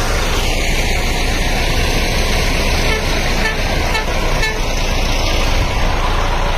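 Tractor-driven wheat thresher running steadily, a loud, unbroken mechanical noise.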